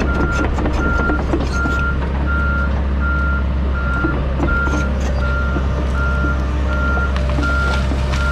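Excavator travel alarm beeping steadily, a single tone a little under twice a second, over the steady running of the John Deere 130G's diesel engine, with scattered clicks and cracks from the work. The beeping stops right at the end.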